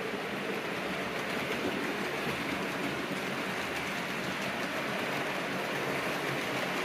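OO gauge model trains running over the layout's track, among them a Hornby A4 locomotive hauling Pullman coaches: a steady sound of wheels on rail and motor.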